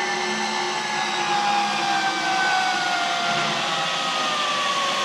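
Zipline trolley pulleys running along the steel cable: a steady whirring with a whine that slowly falls in pitch as the rider goes down the line.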